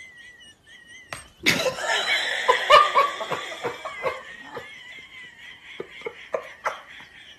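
A person laughing hard for a couple of seconds, starting about a second and a half in and trailing off, with short sharp hits mixed in. A thin, wavering high whine is heard at the start and runs on faintly underneath.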